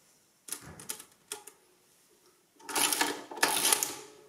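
Portable adding machine from about 1923, with a few sharp key clicks, then its side operating lever pulled through a cycle. The printing mechanism gives a loud metallic clatter in two parts of about half a second each.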